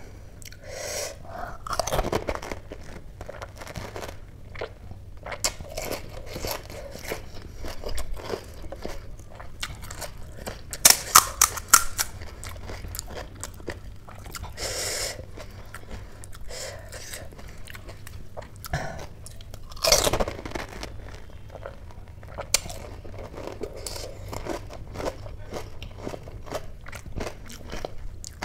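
Close-miked crunching and chewing of pani puri, the crisp fried puri shells breaking up in the mouth in repeated bursts. About eleven seconds in comes a quick cluster of sharp cracks as a puri shell is poked open with the fingers.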